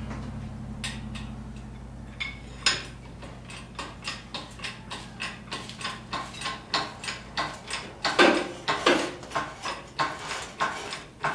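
Engine hoist being worked to lift a transmission and transfer case on a chain: an even run of mechanical clicks, about three a second, with a louder clank about eight seconds in.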